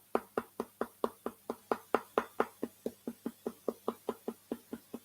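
Upper and lower teeth knocked together in a steady run of light, sharp clicks, about four or five a second, in the qigong teeth-tapping exercise.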